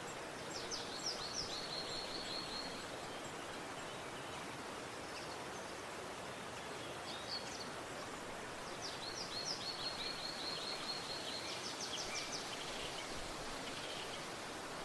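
Steady rushing of a river or stream, with a small bird singing twice: a fast trill of rapid high notes early on and again, longer, about nine seconds in.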